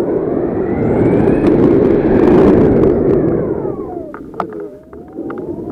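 Rushing wind from the paraglider's flight buffeting the action camera's microphone, swelling loud in the first half, easing about four seconds in, then building again. A faint whistle glides up in pitch and back down through it.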